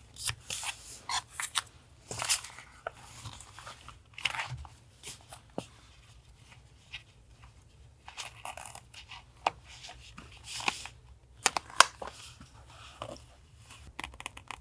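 Paper being handled for a journal collage: irregular rustling and crinkling, with scattered sharp taps and clicks, over a faint steady low hum.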